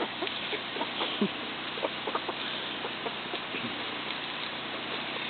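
Backyard hens clucking softly now and then, with short clicks between the calls, over a steady background hiss.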